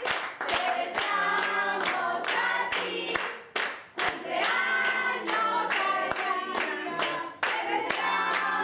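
A group of women and children singing a birthday song together, clapping along in a steady beat.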